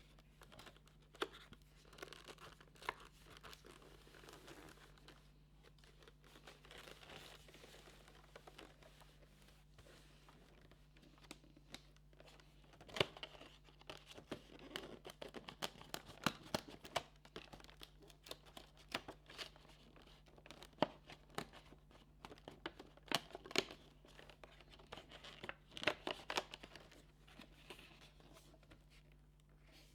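Cardboard and plastic packaging being torn open and crinkled by hand, with irregular clicks and taps, busier in the second half.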